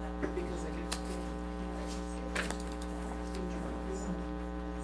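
Steady electrical mains hum, with faint voices chatting in the room and a few light clicks.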